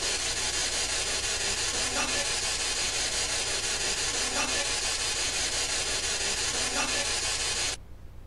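Loud steady hiss of a boosted investigation recording, with a few faint short sounds about every two seconds, which the investigators present as an electronic voice phenomenon saying 'partez'. The hiss cuts off suddenly near the end.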